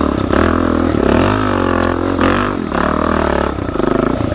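Suzuki DR-Z400 dirt bike's single-cylinder four-stroke engine running under load on a steep dirt climb. Its revs rise and fall several times as the throttle is worked.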